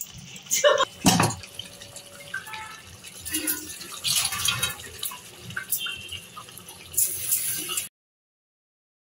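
Thick jackfruit-and-potato curry gravy bubbling and spluttering as it simmers in a metal kadai, with a knock of a metal spatula against the pan about a second in. The sound cuts off abruptly near the end.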